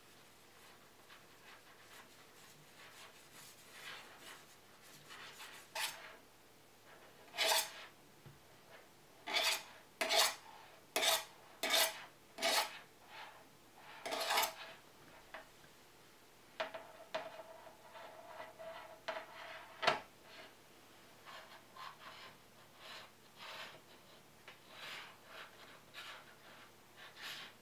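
Knife blade scraping along the rim of a fluted metal tart tin, cutting away the overhanging pâte sucrée in about seven short strokes in the middle. Before and after, softer rubbing as fingers press the dough into the tin.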